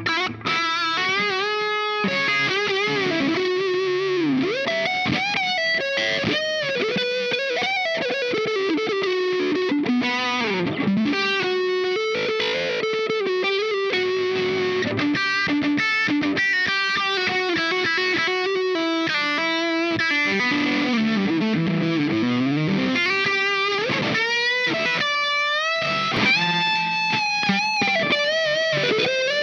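Fender Aerodyne Special Stratocaster played through a Dazatronyx RAD distortion pedal, a take on the RAT circuit: distorted single-note lead lines with string bends, slides and vibrato, at a steady level.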